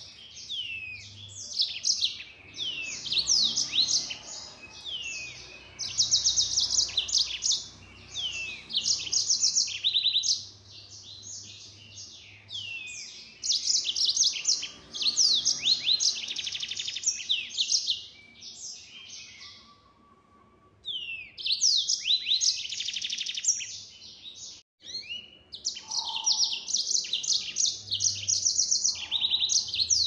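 Yellow-fronted canary singing vigorously in long bursts of rapid trills and quick downward-sweeping notes, broken by short pauses.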